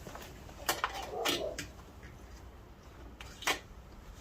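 A few sharp clicks and knocks of hand tools against metal while working inside a car door, about four in all, the loudest near the end.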